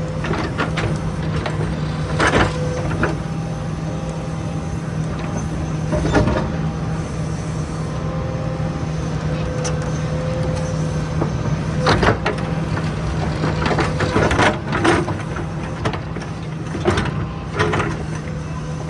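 John Deere 310 SL backhoe's diesel engine running steadily under work, with sharp knocks and clanks several times as the machine digs and rips out old pipe, most of them in the second half.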